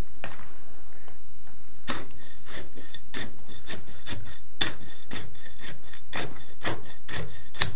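Steel rod jabbed repeatedly into sand and gravel under a broken concrete floor, scraping and clinking on the stones at about three strokes a second from about two seconds in. He is probing for a hollow where the sand has drained away.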